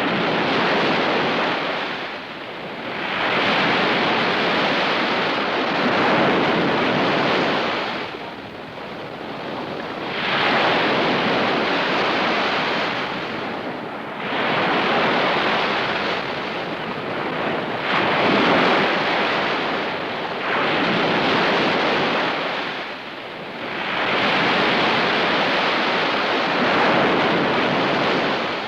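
Heavy ocean surf: waves breaking and washing in, the rushing noise swelling and ebbing in about six long surges, each a few seconds long.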